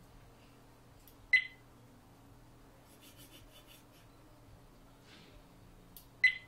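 Two short, sharp electronic beeps about five seconds apart from a 14MP HDMI USB digital microscope camera as its top buttons are pressed, each just after a faint button click. A few soft ticks from handling come in between.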